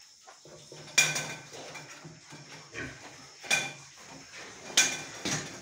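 Sharp metallic clanks with a short ring, three loud ones about a second in, three and a half seconds in and near the end, with lighter knocks between: metal pen fittings such as feeder racks and crate bars being knocked in a pig pen.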